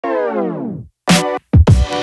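Electronic background music. A synth chord slides down in pitch and dies away in the first second. After short breaks, drum-machine hits and deep kick drums that drop in pitch come in under a held synth chord.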